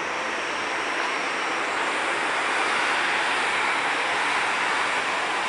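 Distant jet engines of a Boeing 747 jumbo jet slowing on the runway after touchdown: a steady rushing noise that swells slightly about two seconds in.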